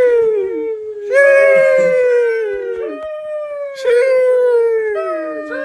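A dog howling: a string of long, loud howls, each sliding down in pitch at its end, with new howls starting about every one to two seconds and some of them overlapping.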